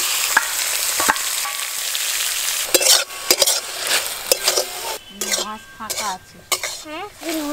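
Spice-marinated chicken pieces going into hot oil and fried onions in a metal kadai, sizzling strongly for the first couple of seconds. A flat metal spatula then scrapes and stirs the meat around the pan in separate strokes while it keeps frying.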